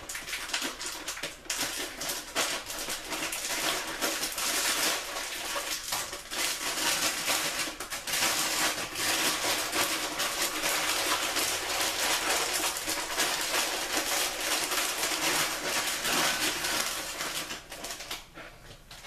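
A plastic chip bag crinkling and rustling as it is handled, with a continuous dense crackle that dies away near the end.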